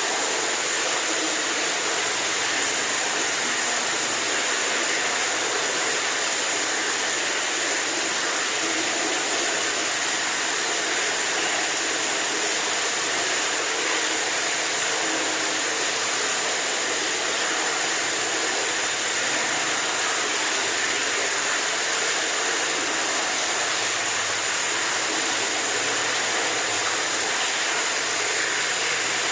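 Running water rushing steadily: an even, bright hiss that never pauses or changes.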